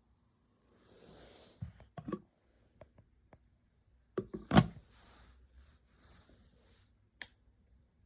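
A handful of scattered knocks and clicks over faint soft rustling, the loudest knock about four and a half seconds in.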